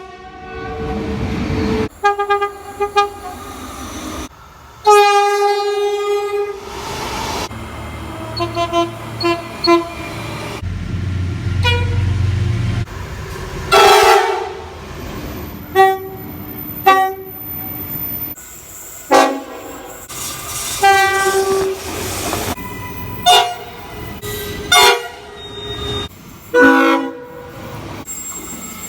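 Locomotive air horns sounding in a series of short clips cut abruptly one after another: long chords and many short blasts. A low rumble sits under them about eleven to thirteen seconds in.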